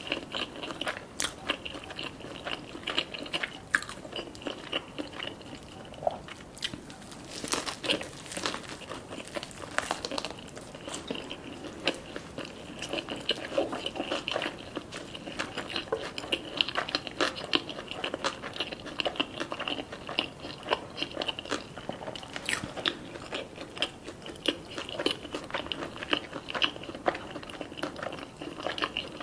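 Close-up eating sounds: steady chewing with many small crisp crunches and wet mouth clicks as food is bitten and chewed.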